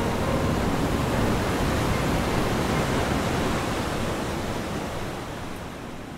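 Steady rush of ocean surf, fading out over the last few seconds.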